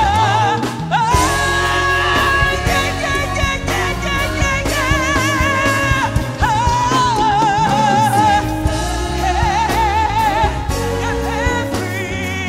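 Live gospel music: a singer holding long notes with a wavering vibrato over a band with bass and drums.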